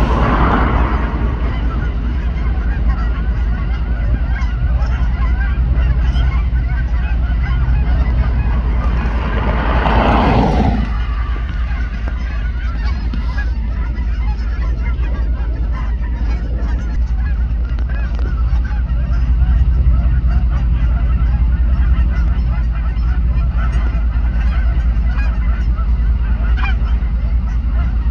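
A large flock of Canada geese honking continuously, many calls overlapping, as birds fly in and land on the pond. A steady low rumble runs underneath, and there are brief rushing sounds near the start and about ten seconds in.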